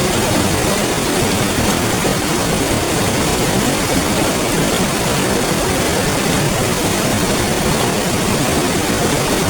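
River water flowing, a steady even rush with no pauses or changes.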